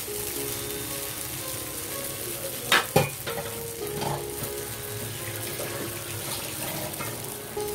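Uttapam frying on a hot dosa tawa, a steady sizzle of batter and oil. Two sharp knocks come close together about three seconds in.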